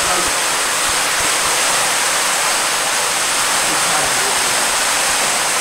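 Steady rush of running water, loud and even.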